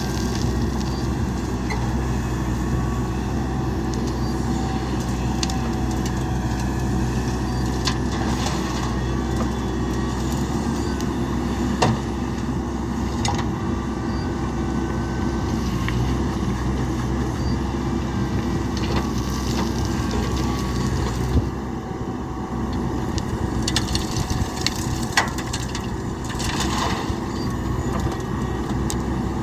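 Heavy diesel engine of earthmoving machinery running steadily, with scattered knocks and clatter over it.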